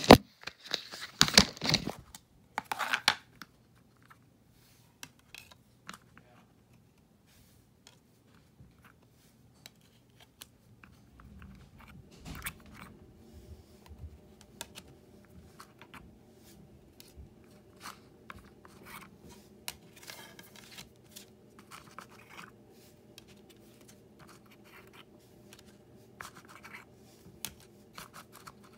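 Plastic DVD discs being handled on a spindle cake box: discs scraping and clicking against each other and the spindle as they are lifted off the stack, with a few louder scrapes in the first seconds and lighter clicks after. A faint steady hum runs underneath from about a third of the way in.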